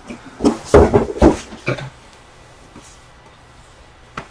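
A handful of short knocks and rustles from a cardboard case of card boxes being handled and opened, bunched in the first two seconds.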